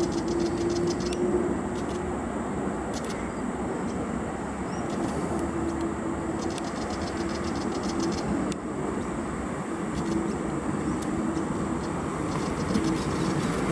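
A steady engine rumble with a low hum running through it, like a motor vehicle idling or running close by.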